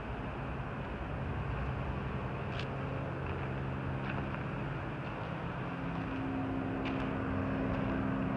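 Steady low engine hum with street traffic noise, its pitch shifting slightly about six seconds in, and a few faint ticks over it.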